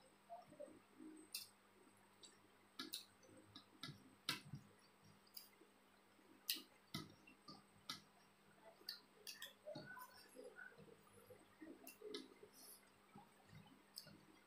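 Faint close-up eating sounds: chewing with scattered sharp clicks and smacks, and soft squishing as fingers mix rice and curry on a plate.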